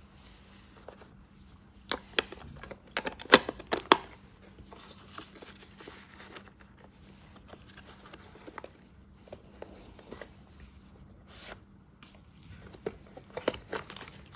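Hands handling small Swiss Army pocket knives: a run of sharp clicks and light rustling, with the loudest clicks between about two and four seconds in.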